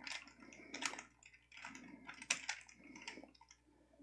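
Rubik's Cube being turned quickly by hand while a last-layer sequence is worked through: quick runs of plastic clicks and clacks, with a short pause about a second and a half in.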